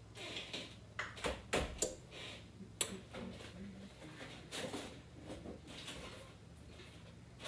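Scattered light knocks and clicks of kitchenware and doors being handled, several sharp ones in the first three seconds, with soft rustling between them.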